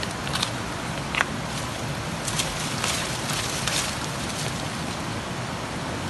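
Steady rushing hiss of running water, with a couple of light clicks in the first second and brief rustling around the middle.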